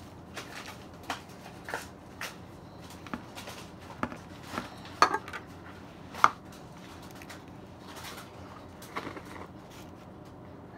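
Irregular taps and clicks of a utensil knocking against dishes while slime is scooped out, with two sharp knocks about five and six seconds in.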